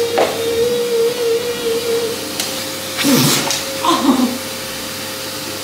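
Vacuum cleaner running steadily: a constant motor whine over the rush of air through its suction tube. There are two short vocal sounds from the person about three and four seconds in.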